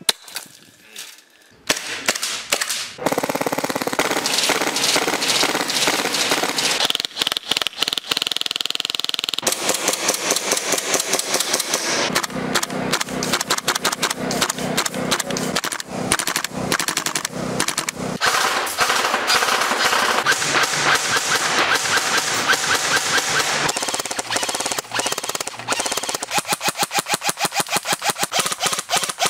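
A run of different airsoft guns firing in quick succession. It opens with a single sharp shot from a 40mm airsoft grenade launcher pistol throwing a spray of BBs. After a brief lull come long strings of rapid full-auto fire from airsoft rifles, changing character several times. Near the end the bursts fall into an even, fast rhythm.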